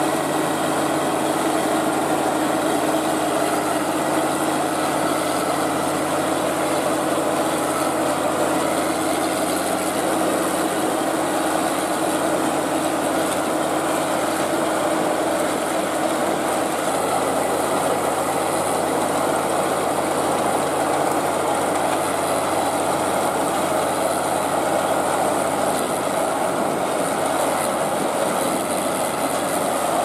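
CLAAS Crop Tiger 30 tracked combine harvester running steadily while it harvests rice: an even, unchanging engine and machinery drone.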